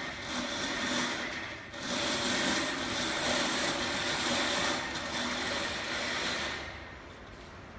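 Coiled steel drain cable of a sectional drain-cleaning machine scraping and rattling as it is pushed by hand through the machine's front, a rough uneven scraping that stops near the end.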